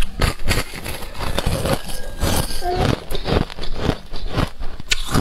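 Thin ice being bitten and chewed close to the microphone: a dense run of crisp crunches and crackles as the ice shell snaps and is ground between the teeth.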